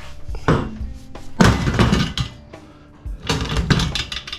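Pieces of scrap metal knocking and clanking as they are handled and set down: several hard knocks, each with a short metallic ring.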